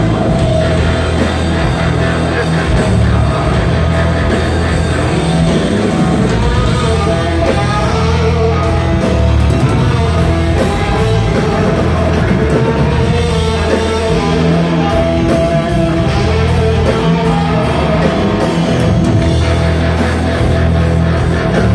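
Live rock band playing loudly: electric guitar over bass guitar, drum kit and bowed cello, heard from the audience in a theatre.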